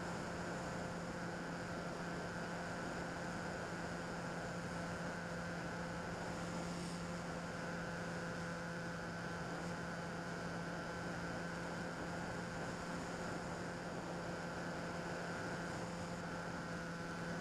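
Bixler 2 RC plane's electric motor and pusher propeller humming steadily in flight, heard from a camera on the plane's nose, with a hiss of air noise.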